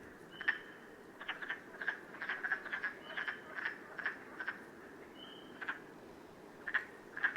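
Frogs calling: short clicking croaks repeated irregularly, about two a second, with a lull a little past the middle.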